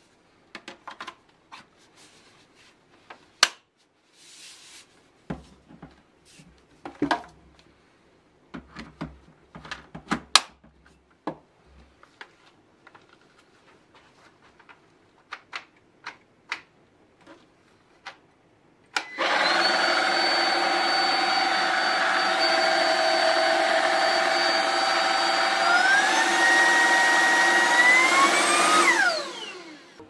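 Plastic parts of a Dibea F20 Max cordless stick vacuum clicking and knocking as they are snapped together. The vacuum is then switched on and runs with a steady motor whine for about ten seconds, stepping up in pitch twice as the suction setting is raised, then is switched off and winds down.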